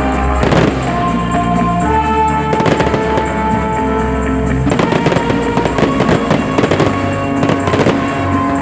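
Fireworks going off in repeated bangs and crackles over music with long held chords.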